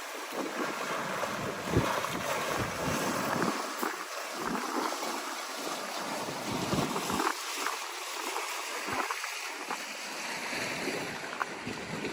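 Steady hiss of rain falling, with irregular gusts of wind rumbling on the microphone.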